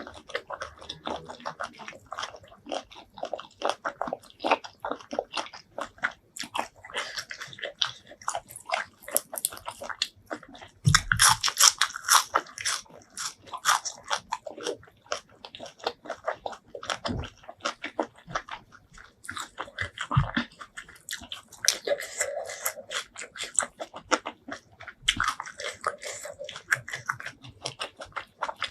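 Close-miked mouth sounds of a person biting and chewing seafood: dense clicks throughout, with a louder run of bites about eleven to thirteen seconds in.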